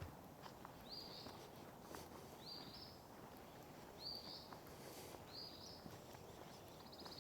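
A bird repeating a short, high, rising call about every second and a half, over faint footsteps on a sandy trail.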